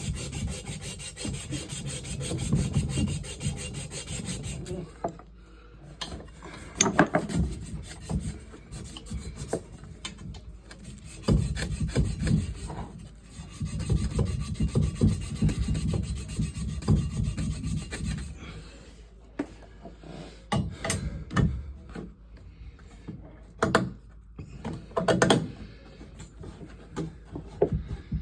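Irregular rubbing and scraping strokes with scattered sharp knocks and clatters from hand work with tools and materials.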